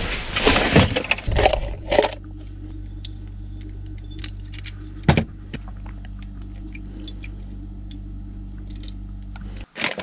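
Clinking and clattering of things being handled and put away for about two seconds, then a few scattered faint clicks over a steady low hum that cuts off abruptly near the end.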